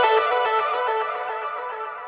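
Background music with plucked, guitar-like notes, fading out.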